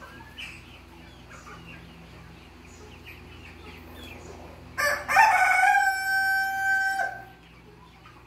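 A young rooster (cockerel) crows once, about five seconds in: one loud crow about two seconds long that ends on a long held note. Before it come faint short chirps.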